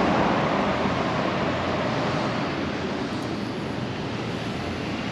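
Street traffic noise: a car driving past close by, its noise fading over the first few seconds into a steady hum of traffic.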